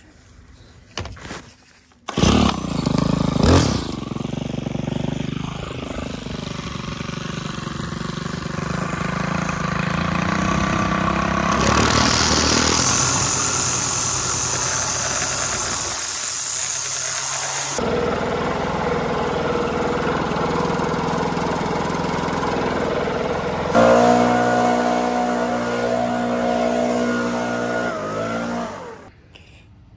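A STIHL FS 111 RX gas string trimmer comes in suddenly about two seconds in and runs steadily while edging grass along a concrete sidewalk. About six seconds before the end, a handheld leaf blower takes over, louder and with a steady tone, and cuts off just before the end.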